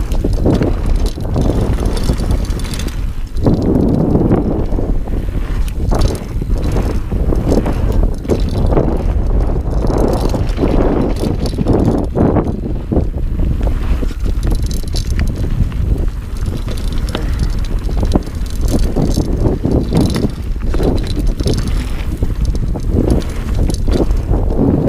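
Dartmoor Primal 29er hardtail mountain bike riding fast down a dry dirt trail: steady tyre rumble over the ground with frequent rattles and knocks from the bike, and wind buffeting the microphone.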